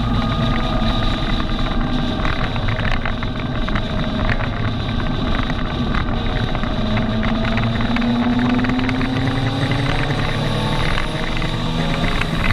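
Kawasaki Z750R's inline-four engine running at road speed, heard from the rider's seat with wind noise over it. Its pitch rises slowly from about halfway in and drops back near the end.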